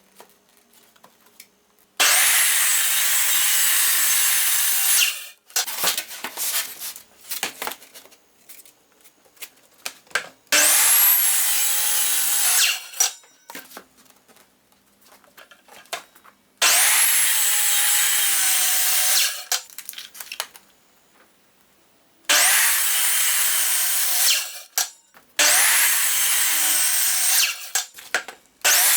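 Circular saw cutting plywood in repeated short cuts: the motor whines up to speed, runs through the cut for about three seconds, then stops. This happens four times, with a fifth cut starting near the end, and there are clicks and handling knocks in between.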